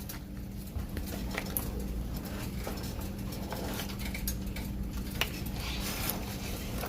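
Soup in a pot cooking on the stove, giving scattered soft pops and clicks over a steady low hum.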